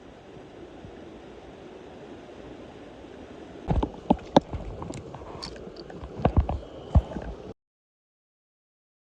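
Steady rush of a mountain stream, then a run of sharp knocks and clicks for about four seconds before the sound cuts out completely.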